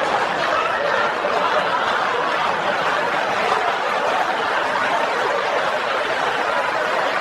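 Audience laughter: many people laughing together in a steady, unbroken wash.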